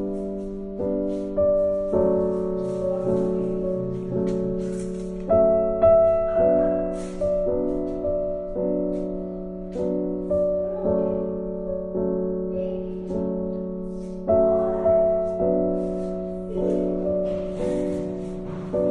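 Background piano music: a slow, calm melody of single notes struck at an even pace, each one fading before the next.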